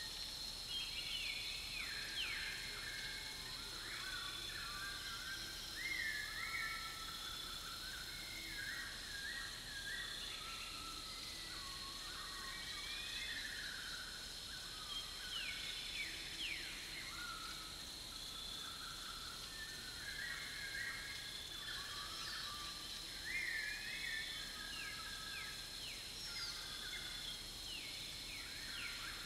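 Several songbirds chirping and singing in short, varied whistled phrases over a steady, high-pitched insect drone.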